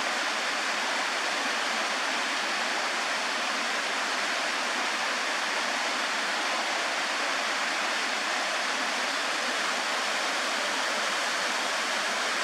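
A small creek's waterfall, about 25 feet high, rushing and splashing in a steady, unbroken wash of water noise.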